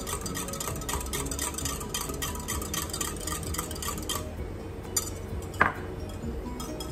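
Wire whisk beating eggs in a glass measuring cup: rapid clinking strokes of metal against glass, about four or five a second, thinning out after about four seconds, with one sharper ringing clink about five and a half seconds in.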